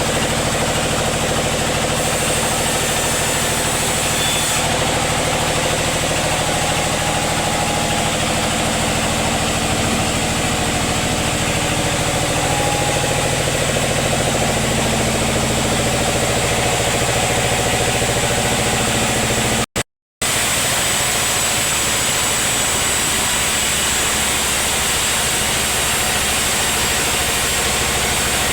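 Sawmill machinery running steadily with a continuous motor drone. It cuts out completely for a split second about two-thirds of the way through, then carries on noisier and with fewer steady tones.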